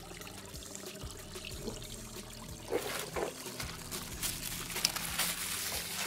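Shallow stream water trickling over rocks, with light splashes and drips.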